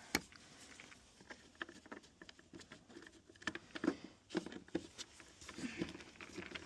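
Faint, irregular small clicks and scrapes of a screw being driven back in to hold plastic interior trim, with a sharper click right at the start.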